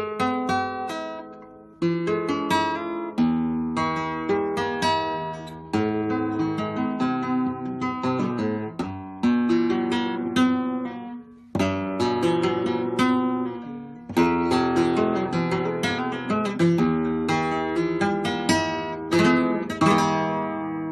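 Flamenco guitar being played, a newly built 1987 Reyes-style flamenco negra: strummed chords and single plucked notes, each attack sharp and ringing out before the next.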